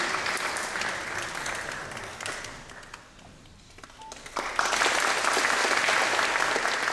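Audience clapping. The applause dies away about three seconds in, then swells up again strongly about a second later.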